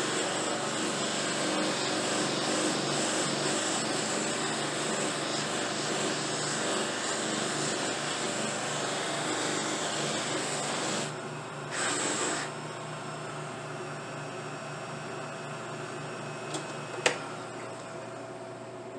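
Multi-wheel pipe buffing machine running, a dyed briar pipe bowl held against its spinning felt wheels: a steady whirring rush. The sound drops off for a moment about eleven seconds in, then runs on quieter once the pipe is off the wheel, with one sharp click near the end.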